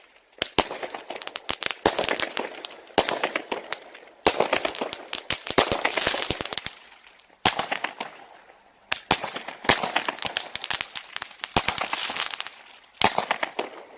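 A 36-shot, 0.6-inch-calibre fireworks cake ("MING") firing its shots about nine times, every one to three seconds. Each shot is a sharp bang followed by a spray of crackling that dies away over a second or two.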